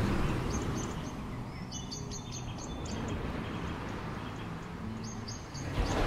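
Small birds giving quick runs of short, high chirps, once about two seconds in and again around five seconds. Under them is the soft rush of small waves washing on the beach, swelling at the start and again near the end.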